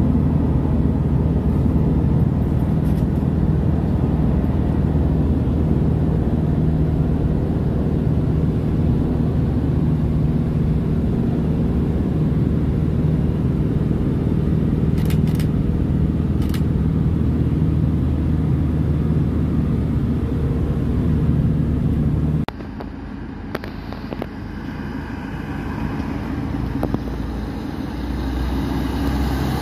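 Steady low drone of a vehicle's engine and tyres heard from inside while it cruises on an expressway. About 22 seconds in this cuts to a quieter roadside sound, where a MAN tanker truck's diesel engine grows louder as it approaches.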